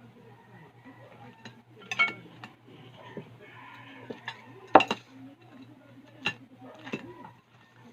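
Plates and cutlery clinking and knocking at a meal table, a few sharp clinks, the loudest about five seconds in.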